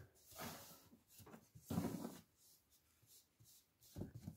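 A hand brushing and scraping spilled mealworm bedding along the floor, in a few short faint rustles, the loudest about two seconds in, with a light tick near the end.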